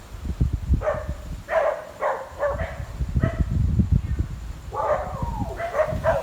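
A dog barking several times in short calls, then giving a longer call whose pitch bends, over a low rumble.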